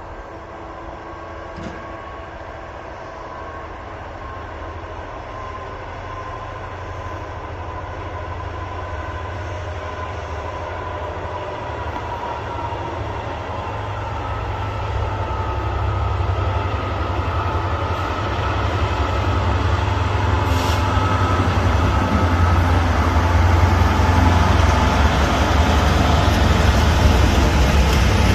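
Diesel freight locomotive approaching, its deep engine rumble and wheel noise growing steadily louder throughout.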